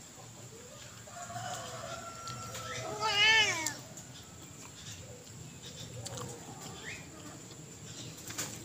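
A cat meowing: one drawn-out, wavering meow that grows loudest about three seconds in, then stops.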